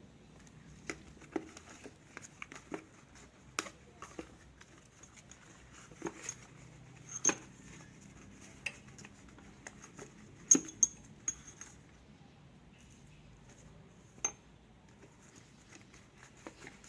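Irregular light clicks and clinks of small hard parts being handled, one or two a second, with a louder close pair about two-thirds of the way through.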